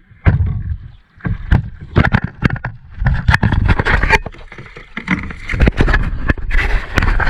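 Kayak being handled and paddled in the water: repeated sharp knocks of paddles and gear against the plastic hull, with splashing and low rumble throughout.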